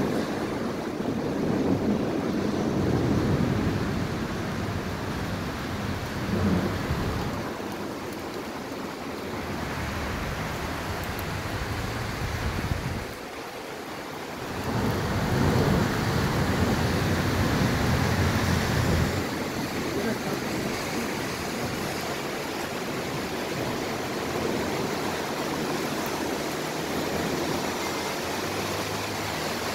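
Heavy rain pouring down steadily, a dense even hiss, with deep rumbling surges near the start and again about halfway through.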